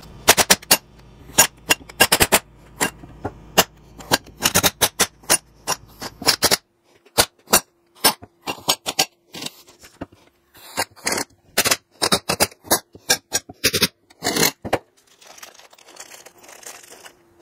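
Sharp metal clicks and knocks, in irregular bunches, as a screw-type C-frame press is tightened to push a universal-joint bearing cup into a double cardan drive shaft yoke. They stop about three quarters of the way through, leaving quieter handling noise.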